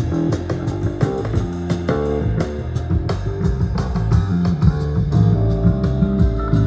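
Music with guitar and bass and a steady beat, playing loud through car audio speakers in a demo box powered by an AudioControl D-5.1300 five-channel amplifier, picked up in an echoey shop.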